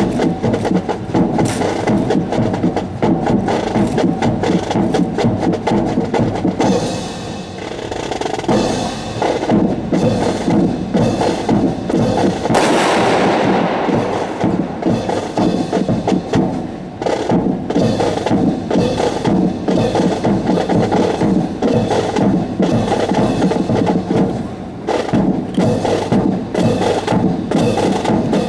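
Marching drums beating out the drill rhythm, with many sharp clacks. About 12.5 s in, a volley of blank rifle shots is fired together; it echoes for over a second in the hangar.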